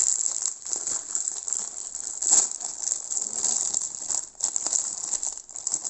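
Plastic packaging crinkling and rustling as it is handled and torn open, a dense irregular crackle.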